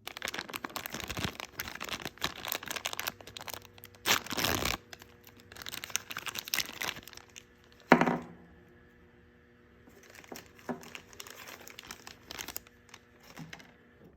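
Plastic blind-box packaging crinkling and tearing as it is opened by hand, with one sharp snap about eight seconds in, then quieter rustling.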